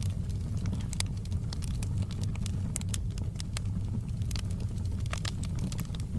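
Wood fire burning in a fireplace: a steady low rumble of the flames with irregular sharp crackles and pops of the logs, several a second.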